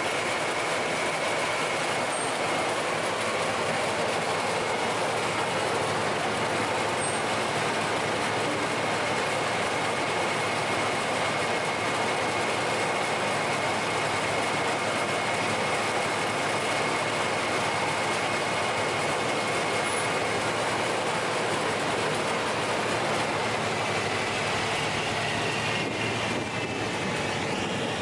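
SAFO DNAA 140 log rounding machine running empty, its feed rollers and cutter head turning with a steady, even mechanical noise and a thin high whine in the first couple of seconds. Near the end the sound shifts and dips as the machine is switched off.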